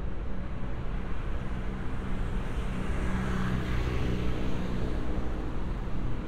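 City street at night with a car passing by on the road: tyre and engine noise swells to its loudest about three and a half seconds in and then fades. A steady low hum lies underneath.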